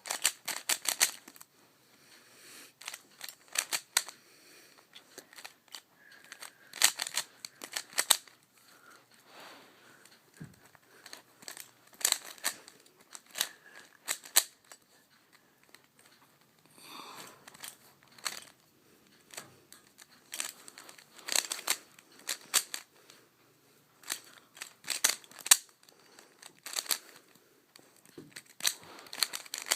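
Plastic layers of a DaYan GuHong V2 3x3 speedcube clicking and clacking as they are turned during a solve. The turns come in quick bursts of clicks with short pauses between them.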